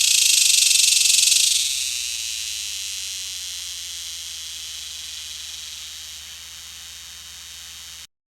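An insect's high-pitched, rapidly pulsing buzz. It is loudest for the first second and a half, then fades slowly and cuts off abruptly near the end.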